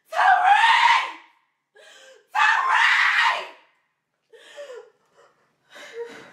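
A woman screaming and wailing in grief. There are two loud cries about a second each, then quieter sobbing catches of breath near the end.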